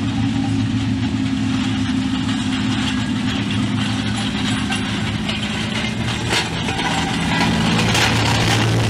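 Tank fitted with mine-clearing rollers driving on a gravel road: a steady low engine drone with clatter from its tracks and rollers, growing a little louder as it comes close near the end.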